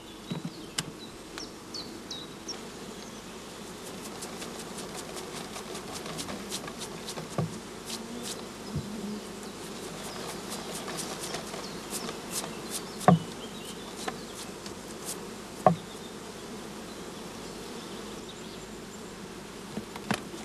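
A mass of honeybees buzzing steadily while bees are shaken off combs into a swarm box for a shook swarm, with scattered light clicks and two louder knocks in the second half.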